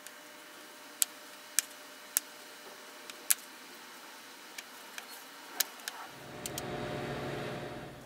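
A spatula clicks and taps against a porcelain bowl while thick bean-paste dough is spread thin, with several sharp knocks scattered through. Over the last two seconds a low rumbling hum rises and fades.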